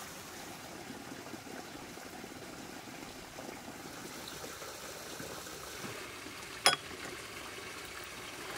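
Running water of a stream, a steady trickling rush. A single sharp click sounds about two-thirds of the way through.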